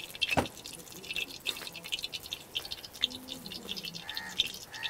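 Mustard oil heating in a metal kadhai over a wood fire: light, irregular sizzling and crackling, with one sharper knock about half a second in.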